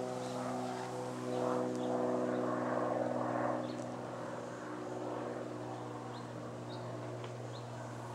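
A steady motor hum of constant pitch, like an engine running, with a few faint short ticks or chirps above it.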